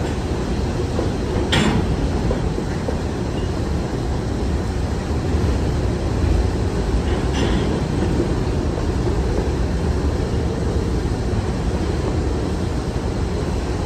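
CN freight train's covered hopper cars rolling past close by: a steady rumble of wheels on rail. Two short, sharp sounds cut through it, one about a second and a half in and a weaker one about seven seconds in.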